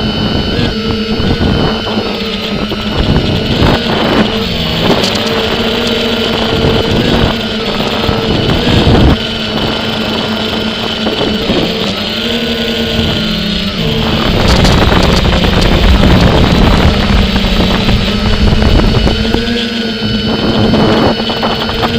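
Quadcopter drone's motors and propellers whirring in flight: a steady multi-toned hum whose pitch wavers and shifts about halfway through, with wind buffeting the microphone.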